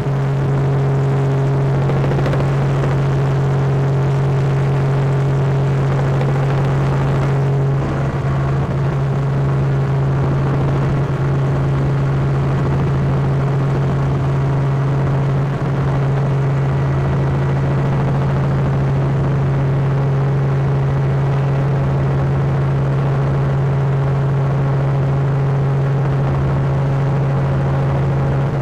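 Small aircraft's engine drone heard from inside the cabin: a loud, steady low hum with no change in pitch.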